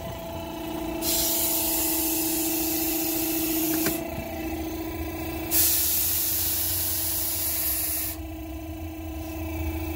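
Compressed air blasting up through the sand in a sand-filled hot tub to fluidize it: two loud hissing rushes of about three seconds each, starting about a second in and again around the middle. Under them an air compressor's engine runs with a steady hum.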